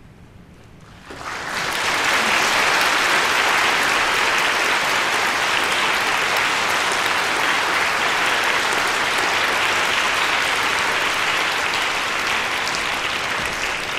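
Audience applauding: after about a second of hush, the clapping starts and carries on steadily.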